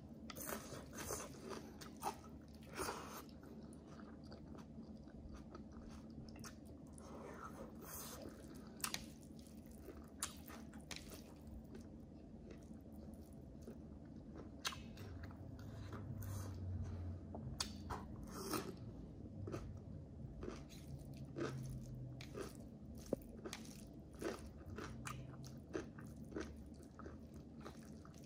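A person chewing and biting food, with sharp crunches at irregular intervals.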